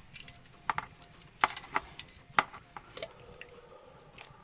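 Scattered sharp clicks and knocks, about five over a few seconds: a barbecue grill and utensils being handled as pieces of marinated chicken are put on it over the fire.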